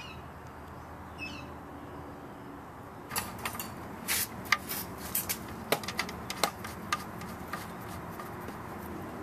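Irregular sharp clicks and light metal taps as a drain plug and its new washer are handled, starting about three seconds in and going on for several seconds, over a steady low hum.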